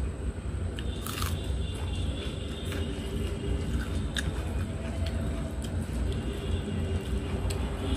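Close-up eating sounds: chewing, with a crisp bite about a second in, and fingers mixing rice and curry on a steel plate, giving a few light clicks. A steady low rumble runs underneath.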